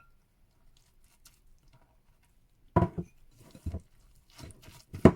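Dishes and utensils knocking against a mixing bowl as flour is added to the sweet potato batter. After a near-silent start, there are a few sharp knocks about three seconds in and again near the end, with light tapping and rustling between.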